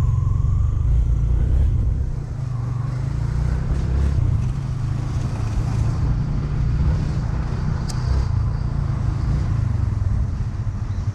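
Steady low rumble of a moving motor vehicle, with road and engine noise, easing off slightly about two seconds in.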